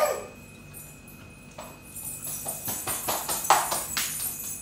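Cutlery clinking against a steel plate during a meal: a quick, irregular run of metallic clinks beginning about a second and a half in and lasting a couple of seconds.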